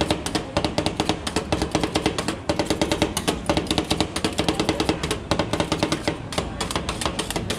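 Two metal spatulas chopping and tapping on the steel cold plate of a rolled ice cream stand: a fast, uneven clatter of metal-on-metal strikes, many a second.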